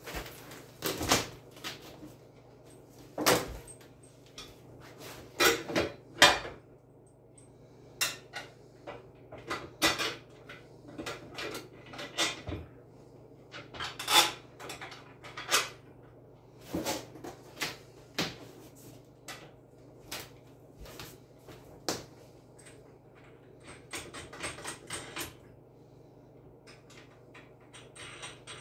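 Chicken plucker parts being handled and fitted during assembly by hand: irregular knocks and clunks of the stainless drum, orange top and motor parts, some sharp and loud, a few seconds apart.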